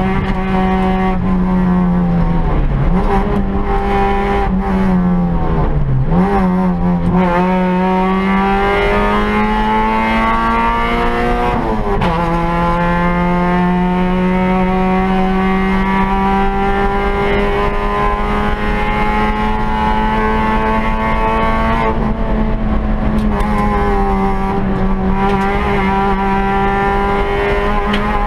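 Peugeot 106 rally car's four-cylinder engine at full throttle, heard from inside the cabin: the note drops and climbs again with several quick gearshifts in the first dozen seconds, then climbs steadily for about ten seconds before a brief lift and a steady pull to the end.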